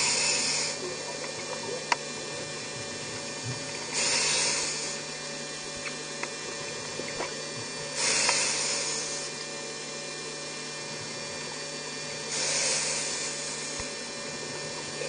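Scuba regulator breathing heard underwater: four bursts of exhaled bubbles, each about a second long, roughly every four seconds, over a steady low hum.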